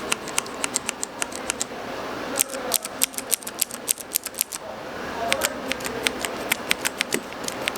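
Keyboard switches in a switch tester being pressed over and over, giving quick runs of sharp clicks several a second, with short pauses about two seconds in and again about four and a half seconds in.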